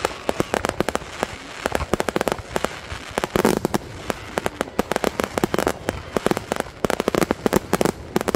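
Fireworks display: rapid strings of bangs and crackling pops, bunched into volleys every second or two.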